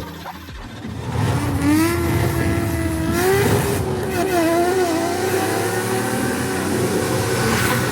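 Nissan Skyline R33's turbocharged RB straight-six revving: the pitch climbs about a second and a half in, wavers up and down, then settles into a steady hold for the last few seconds.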